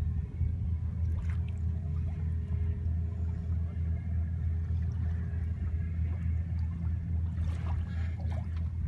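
The engine of the boat carrying the listener, running with a steady low drone.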